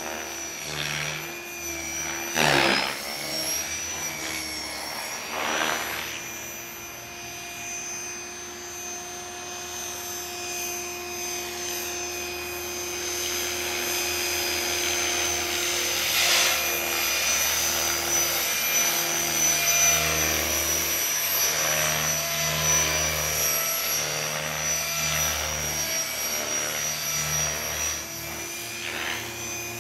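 Gaui Hurricane 550 electric RC helicopter in flight: a steady high whine from its electric motor and drivetrain with the rotor blades' whoosh, swelling in loud sweeps several times as it manoeuvres.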